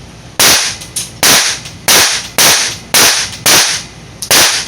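Handgun shots fired in a quick, uneven string: about seven loud shots roughly half a second apart, with a few fainter shots in between.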